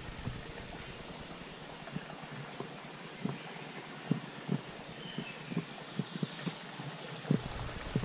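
Footsteps of a person walking along a forest path, irregular soft knocks a few times a second. Underneath run a steady hiss and a constant thin high-pitched tone.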